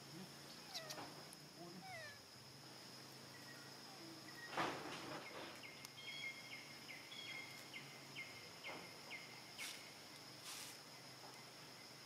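Baby macaque monkey giving short, high squeaky cries, with a brief louder scuffle-like noise about four and a half seconds in. A steady high hum runs underneath.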